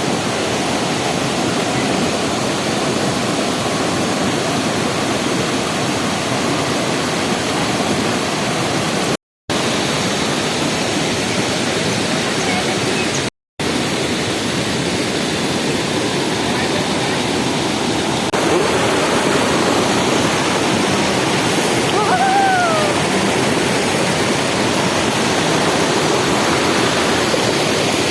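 Waterfall: a steady rush of falling water. The sound cuts out twice for an instant and gets slightly louder about two-thirds of the way through.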